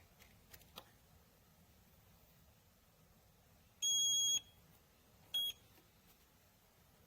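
Electronic keypad lock of a biometric pistol safe: a few faint clicks, then one long high beep and, about a second and a half later, a short beep, as an attempt to program a PIN or fingerprint is not accepted.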